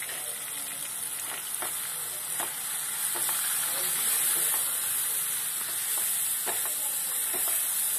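Onion-ginger-garlic paste, chopped tomato and ground spices sizzling in hot oil in a non-stick kadai. A silicone spatula stirs the masala, scraping and tapping the pan in short, irregular clicks.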